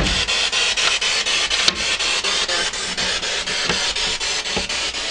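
Spirit box sweeping radio stations: loud static hiss chopped into rapid, evenly spaced pulses.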